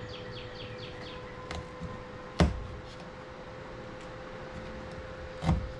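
Two sharp knocks of hardware or tools being handled, about three seconds apart, with a fainter tap before the first, over a steady low hum.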